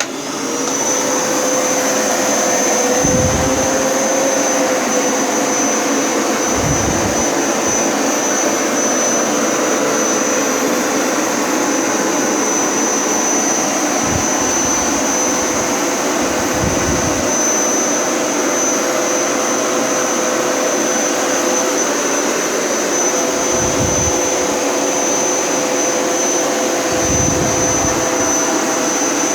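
Hoover Power Scrub Elite upright carpet cleaner switching on and running steadily, its motor giving a high whine over a lower hum. About six short low thumps come at intervals.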